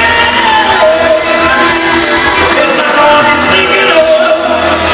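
Live band music with a voice singing a melody over a steady bass.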